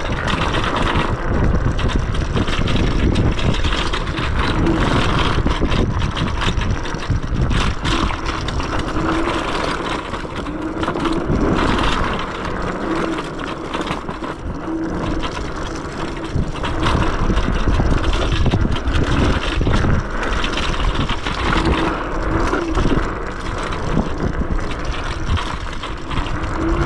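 Yume X11 electric scooter riding fast on a dirt trail: wind buffeting the microphone and tyres rumbling over the ground, with a whine from its electric motors rising and falling with speed.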